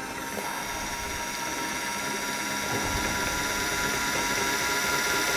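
Home-made compound slide power feed on a Warco WM180 lathe, its 24 V geared DC motor running fast and winding the compound slide along its feed screw. A steady mechanical whine with several even tones that grows gradually louder.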